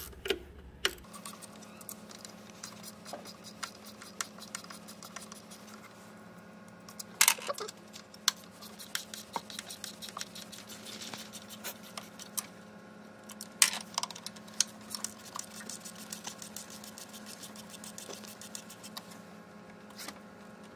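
Socket wrench with a 10 mm socket on an extension loosening the bolts of an engine's manifold tuning valve: scattered small metallic clicks and ticks, with a few sharper clinks about a third and two thirds of the way through.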